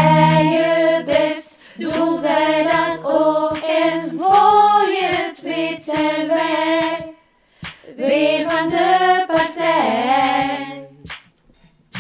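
Several women singing a Dutch children's song together, with sharp hand claps between the sung phrases. The singing breaks off briefly about seven seconds in and again near the end.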